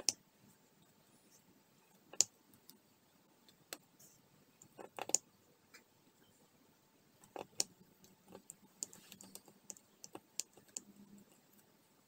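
Diamond-painting drill pen and round resin drills clicking: irregular sharp taps and clicks as drills are picked up and pressed onto the sticky canvas, with a quick cluster midway and a run of lighter ticks near the end.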